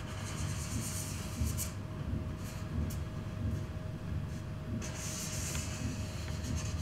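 Felt-tip marker rubbing across flipchart paper in a series of drawing strokes, with a longer stroke about five seconds in, over a low steady room rumble and a faint steady hum.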